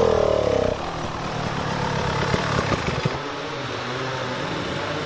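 Dirt bike engine revving hard for the first moment, then falling back to low, uneven revs under heavy load on a steep mud climb.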